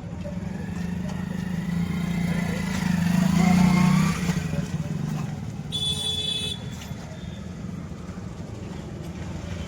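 Motor vehicle engine passing on the road, rising to its loudest about three to four seconds in and then falling away, with a short high beep about six seconds in.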